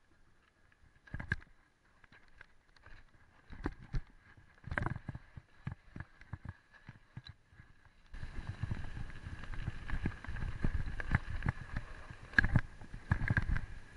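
Mountain bike being ridden down a rough dirt forest trail: scattered knocks and rattles of the bike going over bumps, becoming a continuous rumble of tyres on dirt with louder knocks from about eight seconds in.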